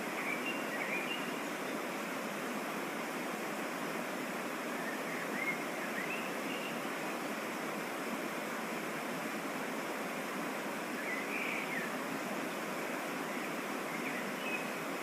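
Steady rush of water from a waterfall and mountain stream, with a few brief faint high chirps over it.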